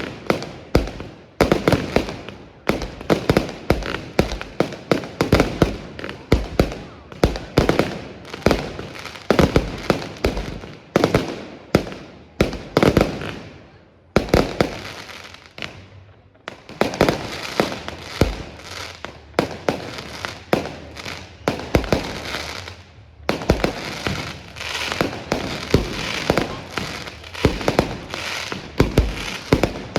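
Fireworks display with rapid, continuous bangs of shells bursting overhead and crackling, a dense barrage typical of a finale. It eases off briefly about halfway through, then resumes just as thickly.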